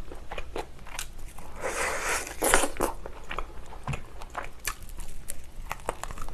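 Close-miked eating of fried chicken: biting into a piece and chewing, with crunching and many small clicks. The loudest crunch comes about two and a half seconds in.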